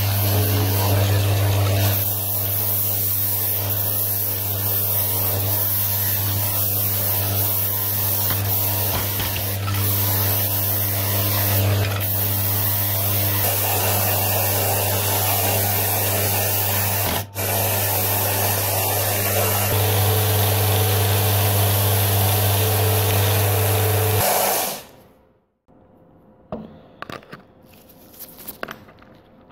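Bench disc sander running with a steady motor hum while a steel hammer head is held against the spinning abrasive disc, grinding its faces flat. The sound stops suddenly about five seconds before the end, leaving only faint taps and knocks.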